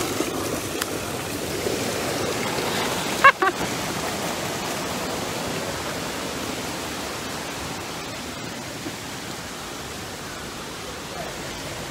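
Steady rush of flowing spring water, fading a little over the second half, with a brief cry from a voice about three seconds in.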